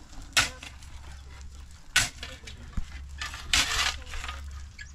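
Steel shovel and hoe scraping and chopping through a heap of gravel and cement being mixed by hand for concrete: sharp gritty strokes about half a second in and at two seconds, and a longer grating scrape a little after three and a half seconds.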